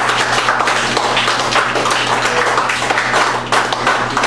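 Live harsh noise electronics: a dense, crackling wall of distorted noise, choppy and broken up, over a steady low hum.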